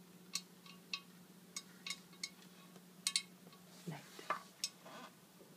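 A twist-knob light switch clicking repeatedly as it is turned: about nine short, sharp clicks, with a quick double click about three seconds in, after which the light comes on.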